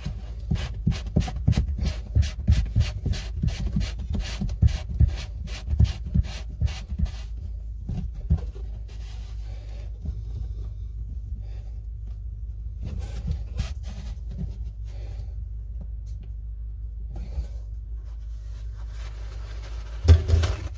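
Plastic P-trap slip nut being hand-threaded and tightened onto a sink drain tailpiece: rapid clicking and scraping of plastic threads and fittings, thinning out to occasional rubbing, with a louder knock near the end. A steady low hum runs underneath.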